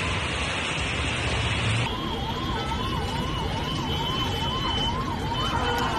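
Dense hiss of heavy rain and running floodwater, then, after a sudden change about two seconds in, an emergency-vehicle siren wailing up and down about twice a second over rain and traffic noise.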